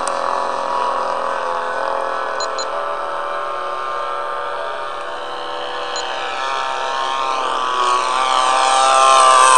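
Radio-controlled Staggerwing biplane's engine running steadily in flight, with a slowly wavering pitch, growing louder near the end.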